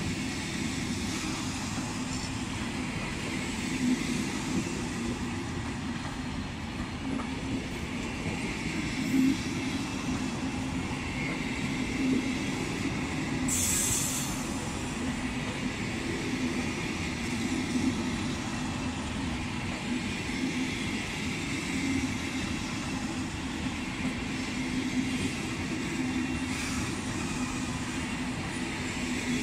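Passenger coaches rolling slowly past: a steady low rumble of wheels on the rails, with a few louder knocks and one short sharp hiss about halfway through.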